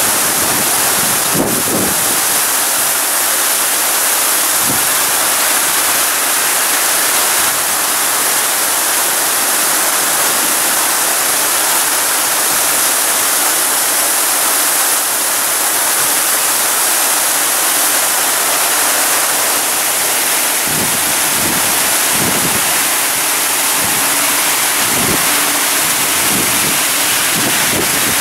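Heavy rain pouring down on a city street, a loud steady hiss, with some low rumbling in the last several seconds.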